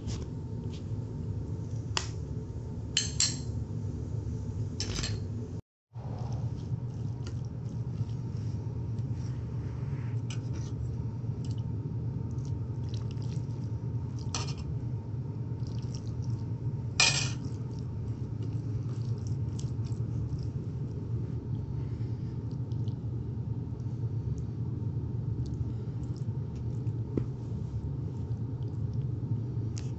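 Stainless steel utensils clinking now and then: a ladle against the steel pot and plate. There are a few sharp clinks in the first seconds and two more midway, the second of those the loudest, all over a steady low hum.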